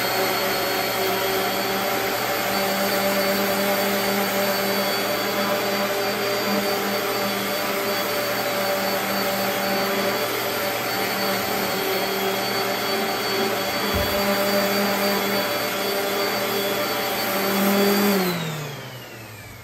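DeWalt random orbital sander running steadily with 80-grit paper against the edge of a walnut board. About eighteen seconds in it is switched off, and its pitch falls as it spins down.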